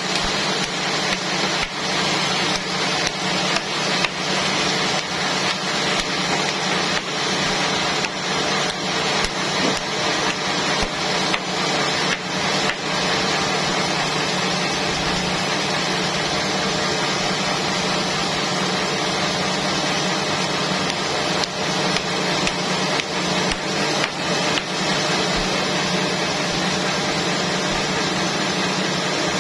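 Sawmill saw running steadily through a trembesi (rain tree) log, with many short sharp clicks over the first half and a few more later on.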